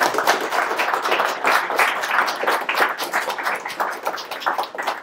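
A small audience applauding, a dense run of hand claps that thins and tails off near the end.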